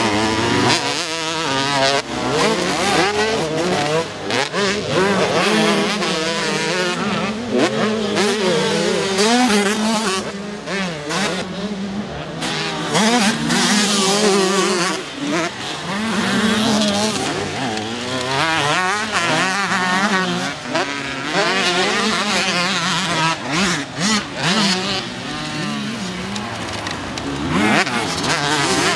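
Several two-stroke motocross bikes racing, their engines revving hard and overlapping, the pitch rising and falling sharply with each throttle change and gear shift, with brief dips in loudness between bursts.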